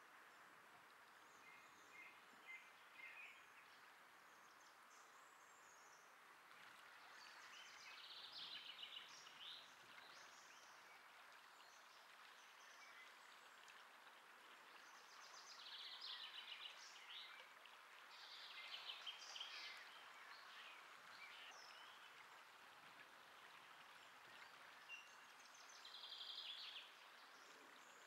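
Faint outdoor ambience: a steady hiss with birdsong, trilled phrases of one to two seconds that come several times.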